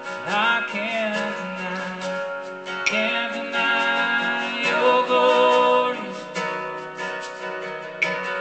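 Acoustic guitar strumming a slow gospel song, with a voice singing long notes that slide in pitch over it.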